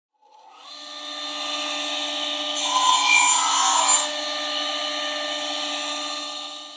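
A power tool running with a steady whine, fading in. For about a second and a half in the middle it grows much louder and hissier as it cuts into the work, then it settles back to the whine and fades out.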